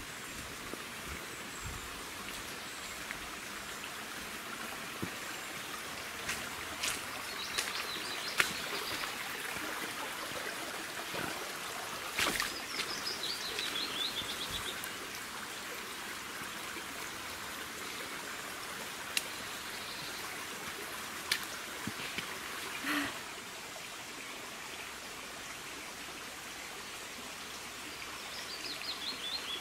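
Steady rushing of a stream, with a songbird singing short trilled phrases that fall in pitch, three times over it. A few sharp clicks stand out now and then.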